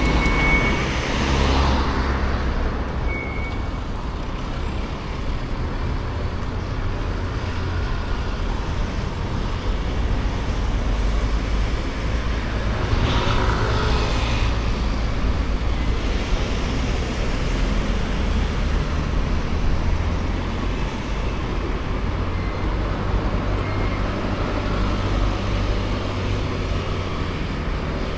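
Road traffic: a steady low rumble of passing vehicles, with cars going by about a second in and again around the middle.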